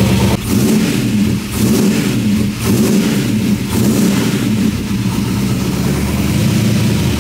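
Freshly built 408 stroker V8 running on its first cold start. The uneven idle dips briefly about once a second for the first few seconds, then settles steadier.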